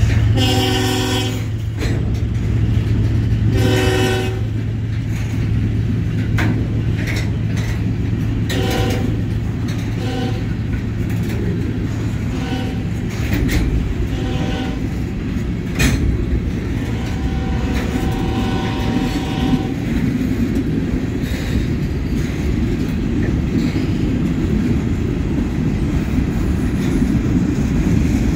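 Freight train of covered hopper cars rolling past with a steady rumble of wheels on rail and occasional clanks. A train horn sounds repeatedly over it: two strong blasts in the first few seconds, then shorter, fainter blasts and one longer blast about two-thirds through.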